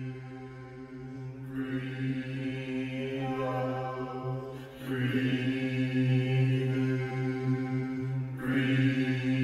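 A low chanted drone held on one steady pitch for meditation, swelling brighter about every three and a half seconds as each chanted syllable opens, then closing down toward a hum.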